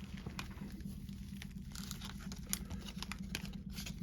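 Baseball trading cards being handled and sorted by hand, with light taps, clicks and crinkling rustles scattered throughout.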